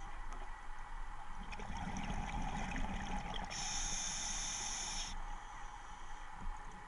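Scuba diver breathing on a regulator underwater: exhaled air bubbling out with a crackling gurgle, then a steady hiss of the demand valve during an inhaled breath lasting about a second and a half.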